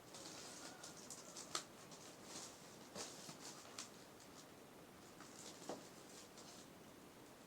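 Faint rustling and a few light clicks and taps from a package being handled and opened, the sharpest click about one and a half seconds in.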